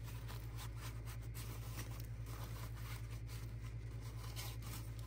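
Paper towel crinkling and rustling in gloved hands as it wipes alcohol off a freshly printed resin part, with many small irregular crackles over a steady low hum.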